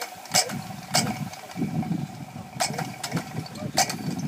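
Lure coursing machine's motor running with a steady whine, with sharp clicks at irregular intervals.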